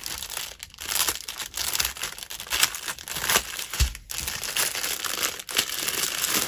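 Small plastic bags of diamond-painting drills crinkling as they are handled and shuffled, with many small sharp crackles throughout.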